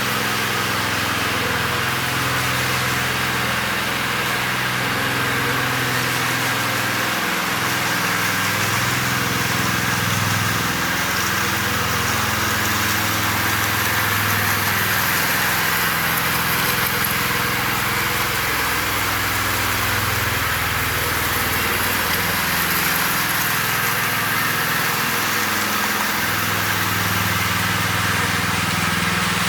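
Small petrol engine of a walk-behind power trowel running steadily while finishing a concrete floor, its pitch wandering slightly, over a steady hiss.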